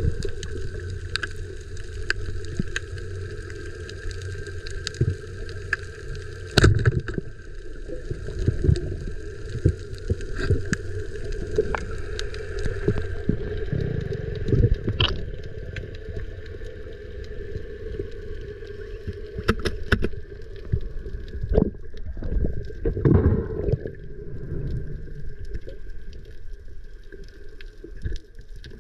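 Underwater sound at a diver's camera: the steady drone of a boat motor carried through the water, with gurgling and sharp clicks now and then.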